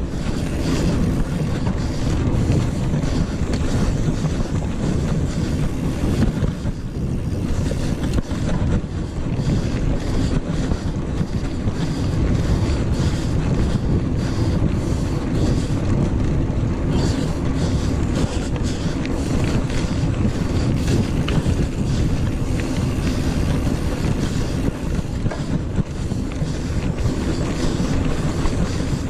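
Wind buffeting the microphone of a camera riding on a moving mountain bike, over a steady low rumble and rattle of the tyres rolling on hard-packed dirt.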